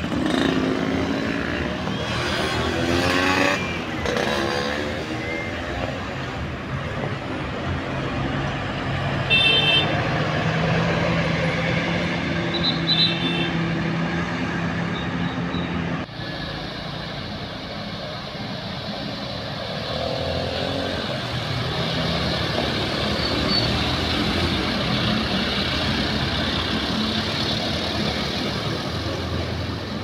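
Diesel tour-coach engines: a bus revving as it pulls away along the road, rising in pitch in the first few seconds and then running steadily. About halfway through the sound changes abruptly to another coach's engine running as it manoeuvres at low speed.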